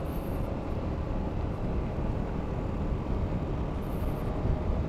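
Honda Forza 250 scooter's single-cylinder engine running steadily at cruising speed, mixed with wind and road noise while riding.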